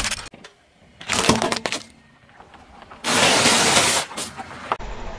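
A car tyre crushing things. The plastic of a desk telephone cracks briefly at the start. Then puffed corn snack balls crunch and crackle under the tyre about a second in, followed by a second of steady, noisy crunching about three seconds in.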